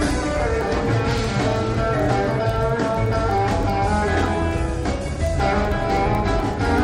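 Background music: a blues tune led by guitar, over a steady low bass line.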